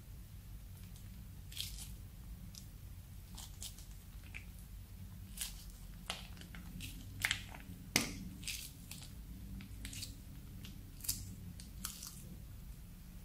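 Clear slime with small beads being squeezed out of a piping bag into a glass dish: scattered small crackles and squishy pops at an uneven pace, the loudest two a little past halfway.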